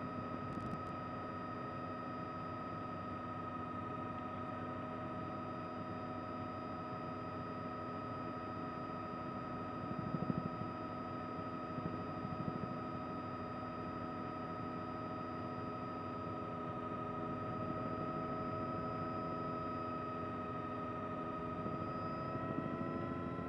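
Helicopter turbine and gearbox whine with rotor noise, heard on board the news helicopter: a steady drone made of several held whining tones, with a few brief louder bumps about ten to twelve seconds in and the pitch creeping slightly upward near the end.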